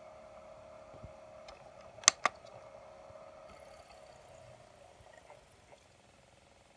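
Two sharp clicks in quick succession about two seconds in, over a faint steady hum that fades a little after the middle.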